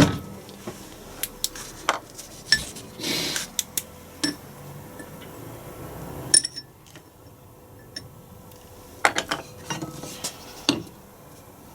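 Hammer blows on metal, a dozen or so sharp irregular clinks, driving a tight part out of a Land Rover LT230 transfer box casing. The part is in tight and only just starts to move under the blows, with a quieter gap in the middle and a quick group of strikes near the end.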